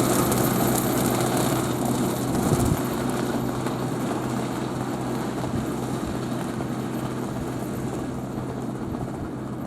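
Zetor 10540 tractor's diesel engine running steadily under load with a mulcher working, growing gradually fainter, with a brief louder knock about two and a half seconds in.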